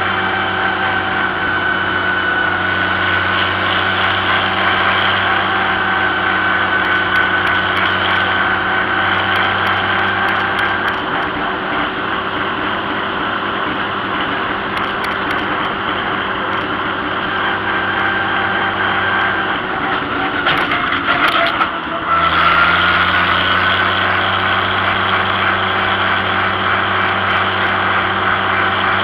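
Vintage farm tractor engine running steadily on the road, heard from on board, with road and wind noise. Past the middle its low engine note drops away for several seconds, then comes back strongly about three quarters of the way through, after a few clicks.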